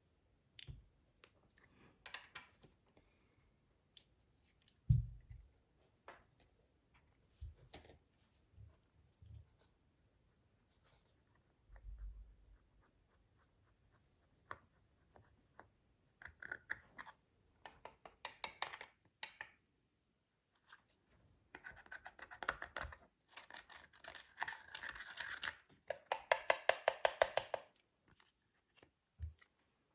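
Slime being handled and mixed with makeup: scattered clicks, scraping and crackling, growing busier in the second half. Near the end comes a fast, even run of clicks.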